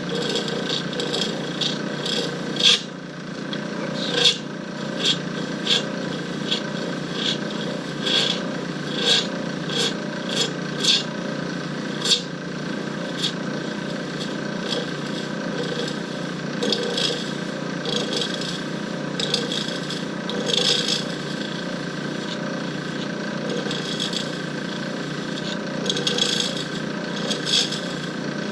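Lathe spinning a cast blank while a hand-held turning tool rounds it: a steady motor hum under irregular sharp ticks and scraping cuts. The chipping comes from the tool striking the high spots of a blank that is not yet round; a smooth, even cutting noise is the sign that it is round.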